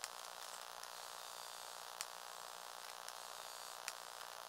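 Small Lego Technic electric motor running steadily through plastic gears as the model grader's front ripper tines move, with three sharp clicks about two seconds apart.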